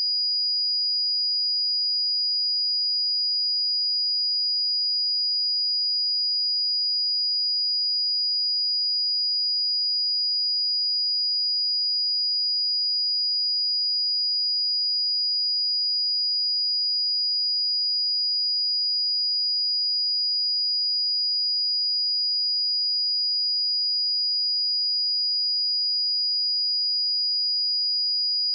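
A pure sine-wave test tone at 4896 Hz, a single high-pitched whistle-like pitch held perfectly steady at constant level, used to check speakers or headphones.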